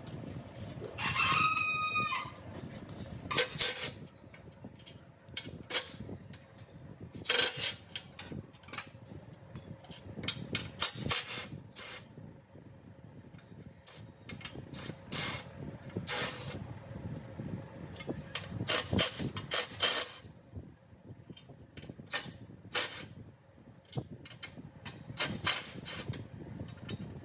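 A rooster crowing once, about a second in, followed by scattered sharp knocks and clicks.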